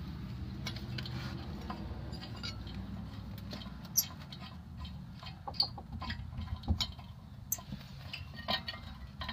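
Scattered light clicks and metal clinks of hand tools and bolts as the rear brake caliper bracket is bolted back on, over a low steady hum. The sharpest click comes about four seconds in, and more follow irregularly.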